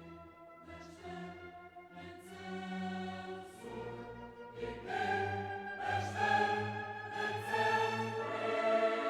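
Background music: orchestral piece with choir singing, swelling louder about halfway through.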